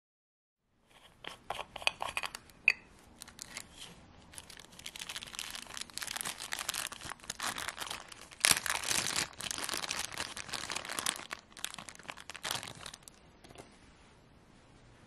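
Thin plastic bag crinkling and rustling as it is handled and opened to take out a replacement watch dial, with scattered small clicks. It begins about a second in and dies away near the end.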